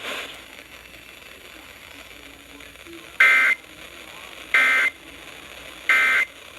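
Emergency Alert System end-of-message data bursts: three short, loud bursts of two-tone digital warble, each about a third of a second long and about a second and a half apart. They signal the end of the broadcast alert.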